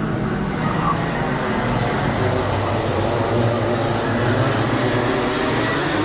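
Racing kart engines running on the circuit as the karts lap, a steady engine drone whose pitch shifts a little up and down.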